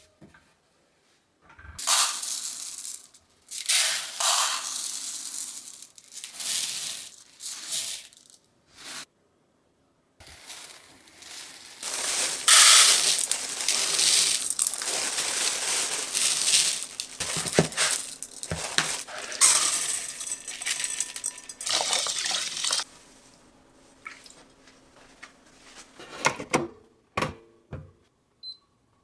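Uncooked rice grains poured from a measuring cup into a plastic rice-washing bowl, making hissing, rattling pours: several short pours first, then a longer stretch of pouring. A few clicks and knocks near the end.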